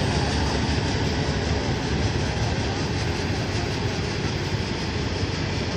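John Deere four-track tractor's diesel engine working at full load as it drags a weight-transfer pulling sled, a steady dense rumble with no clear pitch.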